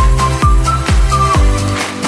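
Background electronic dance music: a kick drum beating about twice a second over a deep bass, with a high melody line on top. The kick and bass drop out near the end.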